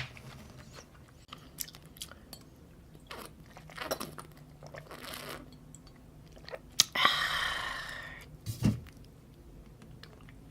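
Close-up chewing of raw salmon: soft wet clicks and smacks of the mouth, with a longer noisy mouth sound about seven seconds in and a low thump shortly after.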